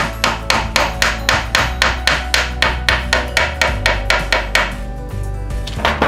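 A hand file rasping back and forth on a carbon-fibre chainstay, about four quick strokes a second, taking glued-in carbon rod down flush to a flat surface. The strokes stop a little before the end, with one last stroke near the end.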